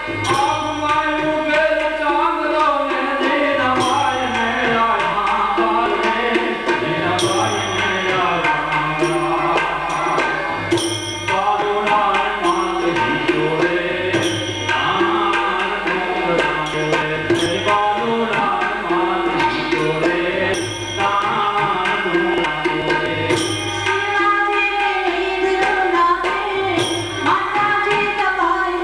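Gujarati folk lullaby (halardu) performed live: singing over harmonium, with percussion strokes recurring through it.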